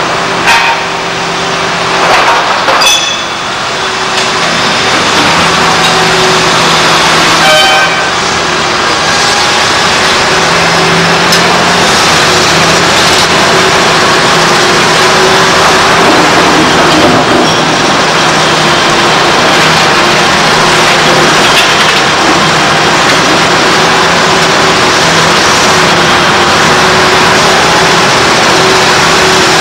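Liebherr R964 crawler excavator's diesel engine running steadily and loud under a harsh working noise. A few short pitched toots or squeals sound in the first several seconds.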